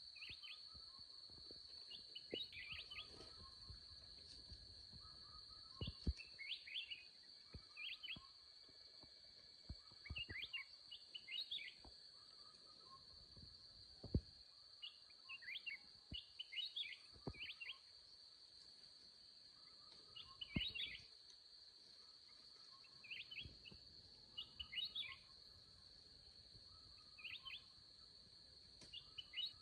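Forest ambience: a steady, high insect drone with a bird chirping in short bursts every few seconds, and a few soft knocks.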